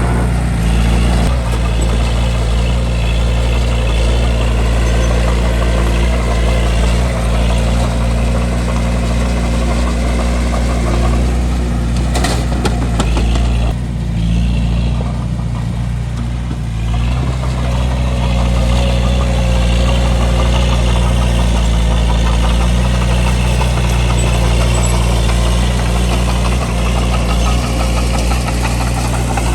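Bulldozer's diesel engine running steadily while the machine works dirt, with a low heavy drone. About twelve seconds in there is a brief sharp knock, and soon after the engine sound drops for a few seconds before picking up again.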